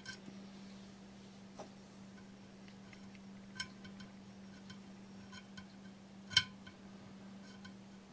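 Small metal spatula clicking and scraping against a glazed ceramic bowl rim while spreading epoxy putty: a few faint, sparse ticks, the loudest about six seconds in, over a steady low hum.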